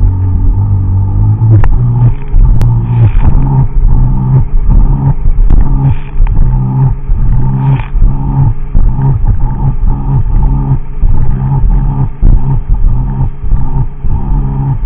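Sea-Doo personal watercraft engine running hard at speed, its pitch rising and falling again and again.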